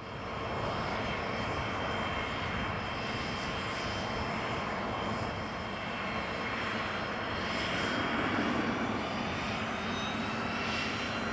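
Cessna Citation CJ4 business jet's twin Williams FJ44 turbofans running at taxi power: a steady rush with a high whine over it, swelling slightly about eight seconds in.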